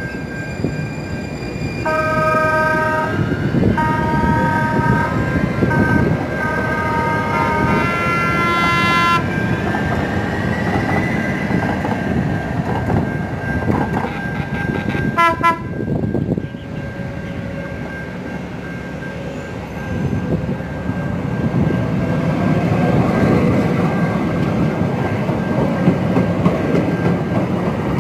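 San Diego Trolley light-rail trains passing at a station: a train horn sounds in a series of blasts over the first several seconds and once more briefly about halfway through. Under it the trains run steadily over the rails, with a rising motor whine in the second half.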